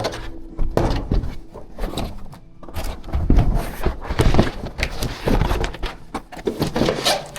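Irregular knocks, thuds and clatter of parts and tools being handled on a workbench, with background music.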